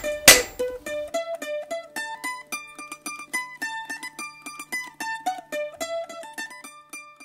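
Background music: a melody of plucked string notes that thins out and fades near the end. About a third of a second in there is one sharp, loud strike.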